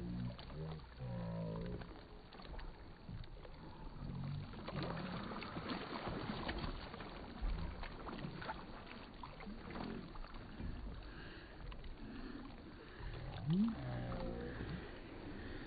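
Kayak paddle strokes splashing and dripping on calm water, with a few sharp clicks. Indistinct voices call out now and then, one with a rising call near the end.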